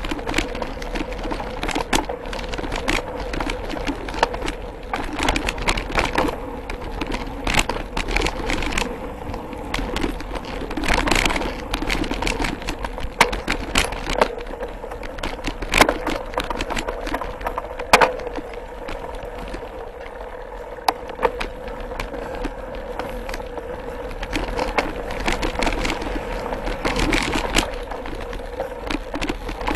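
Mountain bike rolling over a dirt trail, heard from the handlebars: steady tyre noise with a steady hum underneath, and frequent clicks, knocks and rattles as the bike jolts over roots and bumps, the sharpest knock about eighteen seconds in.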